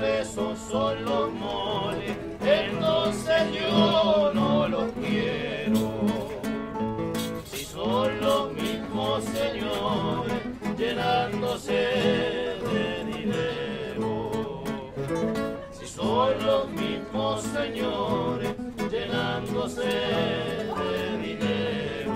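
Chilean tonada played on nylon-string acoustic guitars, with sung phrases coming in over the strummed and plucked accompaniment.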